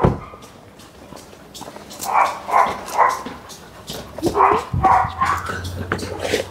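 A dog barking in short runs: three barks about two seconds in, then another run of three or four about four and a half seconds in.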